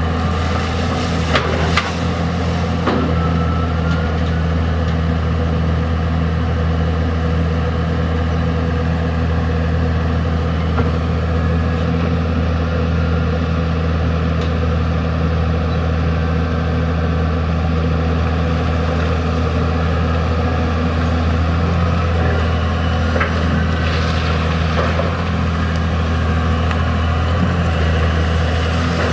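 Komatsu PC200 long-arm excavator's diesel engine running steadily while it works, with a few short knocks near the start and again near the end.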